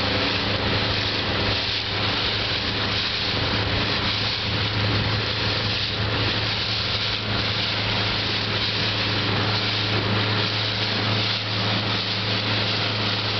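Powerboat engine running steadily, a constant low hum, under the hiss of water and wind rushing past the boat.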